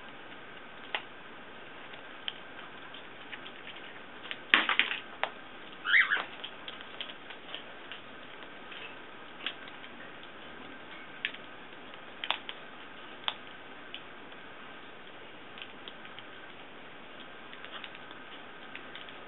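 Blue-and-gold macaw's beak cracking and crunching an almond shell: scattered sharp clicks and cracks, with a louder cluster of crunches about four to six seconds in.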